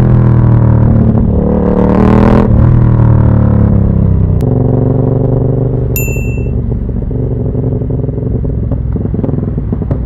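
Moto Morini Corsaro 1200 Veloce V-twin with a Termignoni exhaust, blipped up and back down, then running steadily at low revs. A short high beep sounds about six seconds in.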